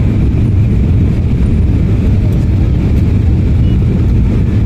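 Steady, loud, low rumble of cabin noise inside an Embraer E195-E2 jet airliner: engine and airflow noise holding an even level with no change.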